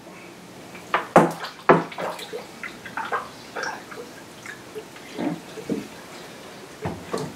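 Distilled water poured from a plastic jug into a funnel on a PC watercooling reservoir's fill port, splashing and dripping in irregular bursts rather than a steady stream. A few sharp clicks about a second in and again near the end, from the jug being handled.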